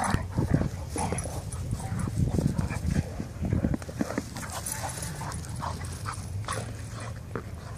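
Two dogs playing together with one ball held between their mouths: scuffling paws on grass and short dog noises, busiest in the first half.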